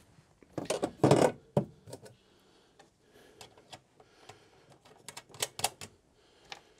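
A hard plastic floor cover being set down and pushed into place on the van's floor, giving a cluster of knocks and clatters about a second in. A few lighter clicks follow near the end as loose cables are handled.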